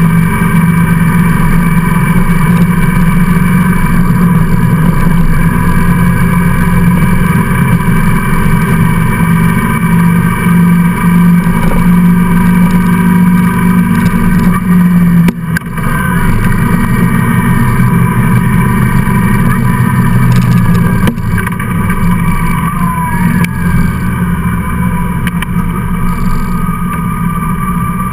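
Motorcycle engine running steadily at road speed, heard from on board with wind rush. The engine note briefly dips about fifteen seconds in, and later the level and pitch drop as the bike slows.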